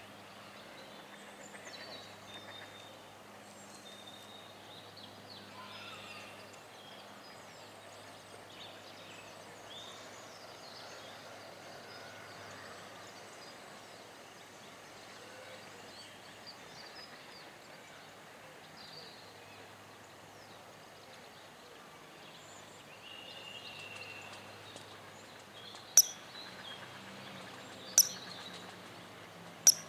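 Outdoor ambience: a steady low background hiss with faint, scattered bird chirps. Near the end come three sharp, loud clicks about two seconds apart.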